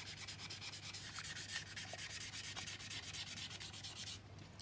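Hand sanding of the Mr. Surfacer-primed seam on a plastic model aircraft fuselage: soft, quick back-and-forth rubbing strokes that stop near the end. This is the seam being smoothed so that no trace of it shows before the top coats.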